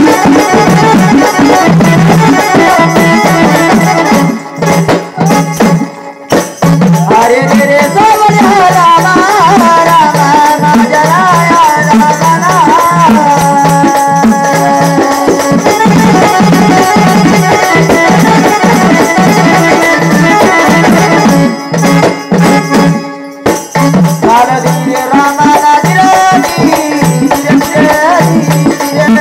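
Marathi jagran-gondhal folk devotional music: a steady drum beat with jingling, rattling percussion and a wavering melody line that rises and falls. It breaks off briefly twice.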